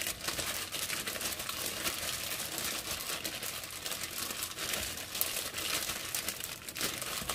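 Plastic bag crinkling continuously as hands squeeze and knead chopped food inside it to mix a kneaded chili dip (nam prik khayam).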